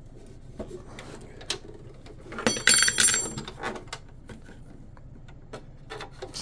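Small metal parts handled at a workbench: scattered light clicks and taps, with a brief high-pitched metallic squeal about two and a half seconds in, lasting under a second.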